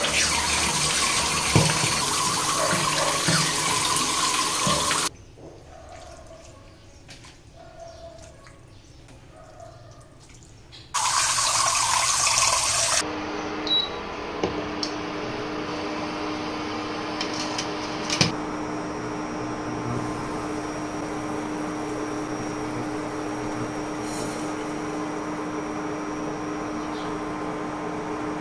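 Tap water pouring into an aluminium pot to rinse boiled pork mesentery, running hard for about five seconds, pausing with some splashing, then running again briefly. After that comes a steady electric hum with a faint hiss from the induction cooktop heating the pot of water.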